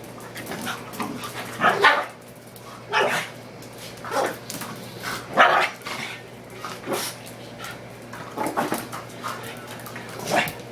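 Two dogs, a pug and a pit bull–ridgeback puppy, play-fighting, with short barks every second or so.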